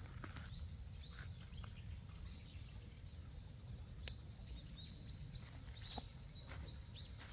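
Faint small birds chirping in short, repeated calls, with a few sharp clicks in between.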